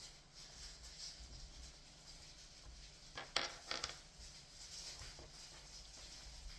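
Sticky slime being squeezed and worked by hand: quiet handling, with a quick cluster of sharp clicks and pops a little over three seconds in.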